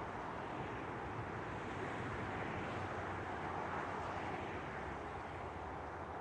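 Steady rushing noise of a passing steam train, swelling in the middle and easing near the end.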